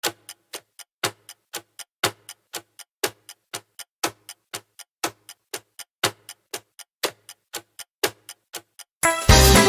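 Clock-style countdown timer ticking, about four ticks a second with a louder tick on each second. Music comes in near the end.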